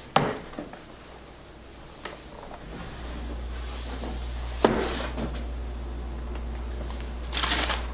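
Knocks and rubbing as a large sheet of notes on a whiteboard is handled and swapped: a thump at the start, a sharp knock just under five seconds in, and a brief rustle near the end, over a low steady hum from about three seconds in.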